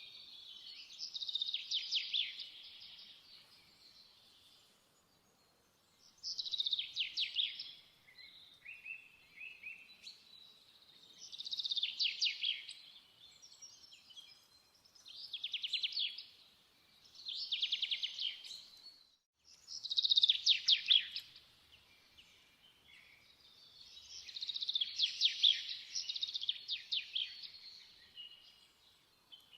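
A songbird singing in short, rapid trilled phrases, each a second or two long, repeated about every four to five seconds.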